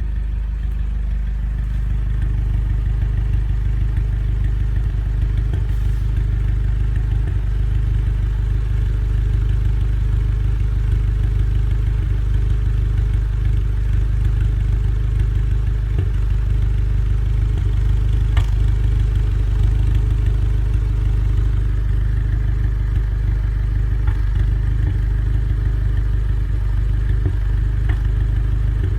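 Volkswagen Golf R engine idling at a steady pitch, misfiring.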